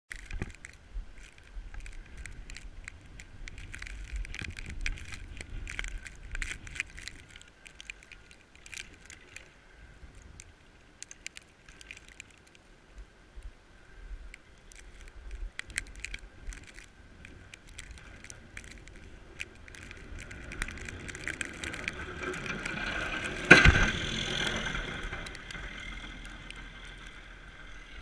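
Snowplow approaching and passing along the street, heard through a helmet-mounted GoPro Hero's housing. Its sound builds over the last third and peaks with one sharp, loud bang about three-quarters of the way through, then fades. Before it comes, the track holds wind rumble and steady crackling and rattling clicks on the camera.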